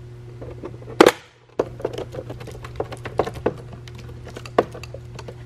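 Plastic housing of a BMW instrument cluster being handled and fitted back together: one sharp snap about a second in, then a string of small plastic clicks and knocks, over a steady low hum.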